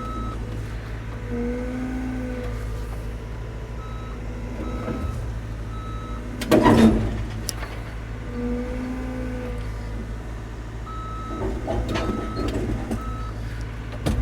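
Cat 325 excavator's diesel engine running at raised idle under hydraulic load as it tracks and curls its bucket to lift itself onto a trailer, with its travel alarm beeping in short runs. A loud, brief burst of noise comes about six and a half seconds in.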